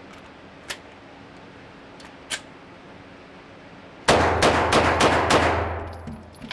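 A handgun fired rapidly in an indoor shooting range, about six shots in under two seconds, each with a hard ringing echo off the range walls. Two faint clicks come earlier.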